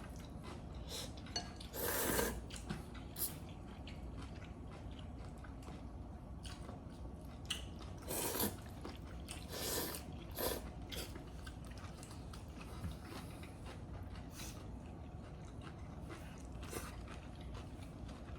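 Close-up eating sounds at a meal of ramen and bone marrow: chewing, with a few short, louder slurping or sucking noises in the first half.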